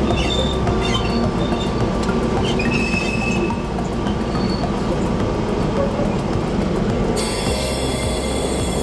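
NT76's Sulzer diesel locomotive engine running steadily, heard from inside the cab, with the wheels rattling over the track and a few short squeals of wheel flanges on the curve. The sound changes abruptly about seven seconds in.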